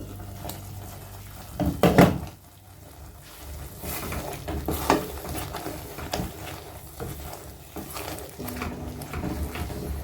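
Cookware clattering as a spoon works a masala paste cooking in oil in a pan, with scattered scrapes and clicks. A loud clank comes about two seconds in and another near five seconds.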